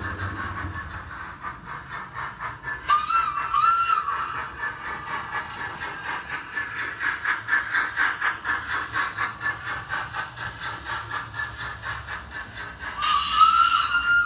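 Sound decoder in a Hornby 2P model steam locomotive playing steady exhaust chuffs through its small speakers, using a 4F sound file. Two short whistle blasts sound about three seconds in, and a longer whistle that rises slightly comes near the end.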